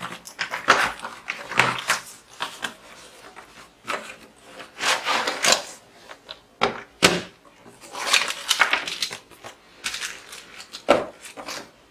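Plastic toy parts clattering and rustling in irregular bursts as they are handled.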